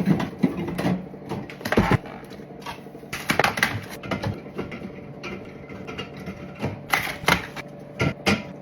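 Aluminium drink cans clinking and knocking as they are handled and set onto the shelves of a mini fridge, in a quick irregular run of clicks.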